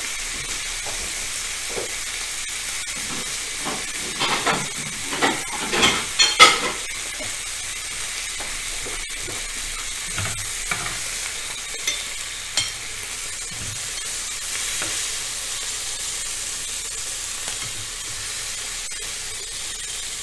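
Chicken drumsticks sizzling steadily on a hot ridged grill pan. From about four to seven seconds in, a run of sharp clinks and clatters of crockery and utensils, the loudest of them about six and a half seconds in, with a few lighter clicks a few seconds later.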